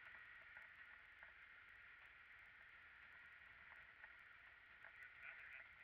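Near silence: a faint, steady outdoor background, with a few faint chirps near the end.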